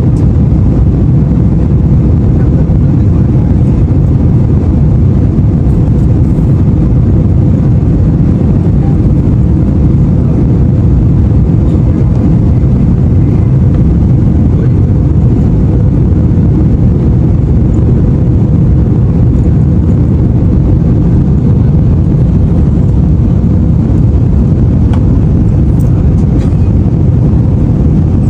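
Steady, loud low rumble of an airliner in flight heard from inside the cabin: jet engines and airflow, with a faint steady hum on top.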